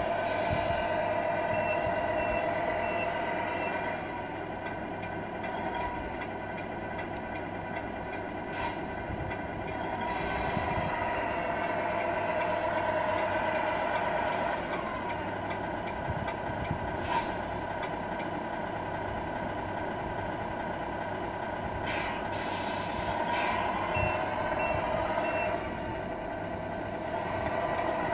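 Simulated diesel truck sound from the sound unit of a radio-controlled Scania R470 model: a steady engine drone, several short air-brake hisses, and reversing beeps near the start and again about three-quarters of the way through.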